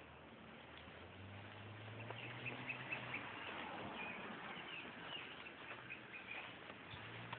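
Faint, quick high chirps repeating throughout, like small birds calling, over a background hiss, with a low steady hum from about a second in to about three and a half seconds in.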